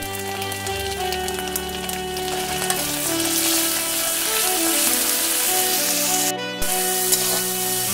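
Dried fish with onion and garlic sizzling as it fries in hot oil in an aluminium kadai, a metal spatula stirring and scraping the pan. The sizzle grows louder about three seconds in, and the sound drops out for a moment near the end.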